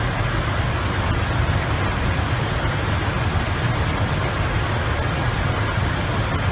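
Steady rushing noise inside an airliner's cockpit in climbing flight: airflow and engine noise, heaviest in the low end and unchanging throughout.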